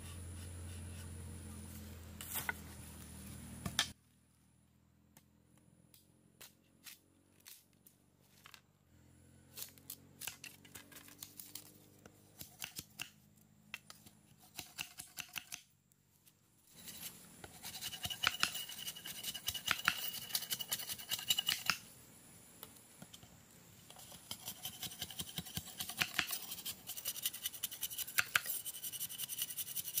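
Machete blade shaving and scraping a bamboo strip in quick repeated strokes, sparse at first and then dense and loudest in the second half, with short pauses. A low steady hum fills the first few seconds and stops suddenly about four seconds in.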